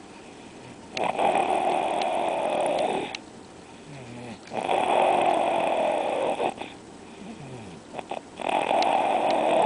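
Loud, regular snoring: three long snores, each lasting about two seconds and coming roughly every three and a half seconds, with quieter breathing between them.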